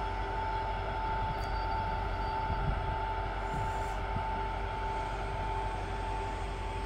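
Train locomotive running steadily: a low rumble with a steady high whine over it and a fainter lower tone.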